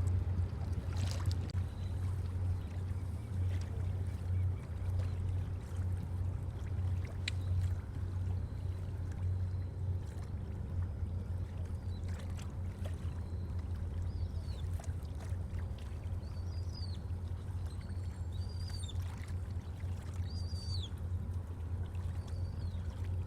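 Low, steady drone of the cement carrier Suhar's engines as the ship moves along the river. A few short bird chirps come in during the second half.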